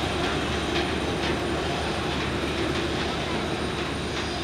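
Parked jet airliner running on the ramp: a steady drone with a constant high whine over it, and faint voices.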